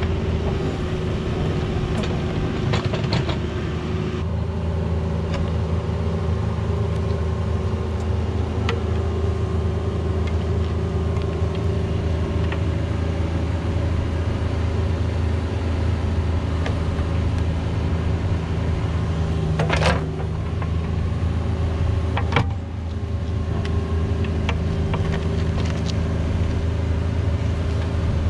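Cat 304 mini excavator's diesel engine running steadily under hydraulic load while the bucket digs a trench through soil and roots. Occasional sharp knocks of the bucket, a louder one about two-thirds of the way through.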